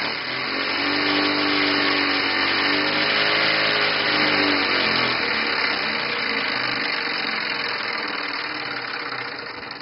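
Single-cylinder oscillating model steam engine running fast on compressed air: a dense hiss of exhaust puffs with a whirring tone that rises and then falls over the first few seconds. Near the end it begins to fade.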